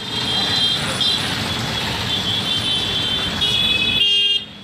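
Slow, dense city traffic close alongside: engines running and tyres on the road, with high-pitched tones sounding on and off. The sound drops away suddenly near the end.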